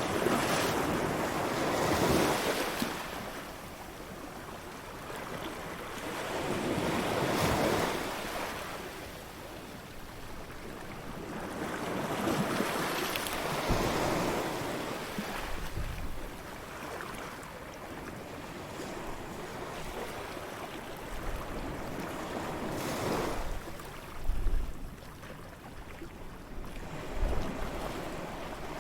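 Ocean waves breaking and washing up a beach, each surge swelling and fading away, four times over. Brief low gusts of wind hit the microphone near the end.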